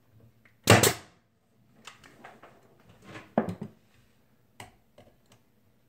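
A pneumatic trim nailer fires once, a sharp crack about a second in, driving a 2-inch nail through a pre-drilled hole into the cabinet light rail. Lighter clicks and taps follow as the gun is moved to the next hole.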